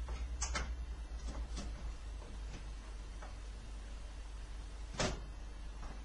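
Scattered clicks and knocks of an Asus EAH5770 graphics card being handled and fitted into a computer's PCI Express slot, with one louder click about five seconds in, over a low steady hum.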